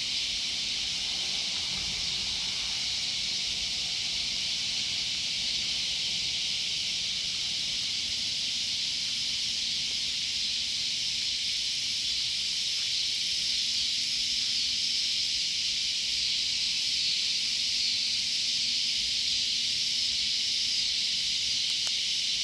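Loud cicadas calling in a steady, continuous high-pitched buzzing chorus, growing slightly louder in the second half.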